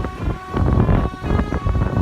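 Telolet bus horn playing a melody: a string of clear notes stepping up and down in pitch, over a low rumble.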